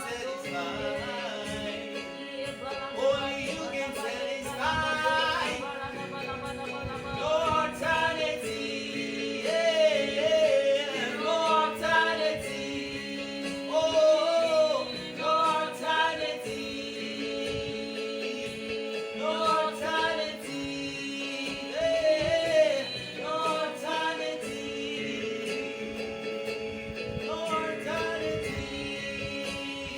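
Gospel song: a solo voice singing phrases with vibrato over sustained accompanying chords.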